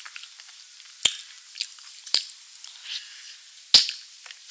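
Close-miked mouth sounds of eating soft chocolate ice cream from a spoon, with faint wet noises and three sharp clicks, the loudest near the end.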